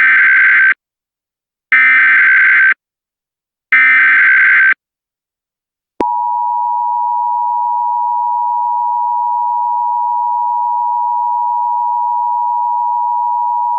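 Emergency Alert System SAME header: three warbling data-tone bursts of about a second each, spaced about a second apart. From about six seconds in comes the EAS attention signal, a steady two-tone alarm at 853 and 960 Hz that holds for about eight seconds. Together they mark the start of a relayed tornado emergency alert.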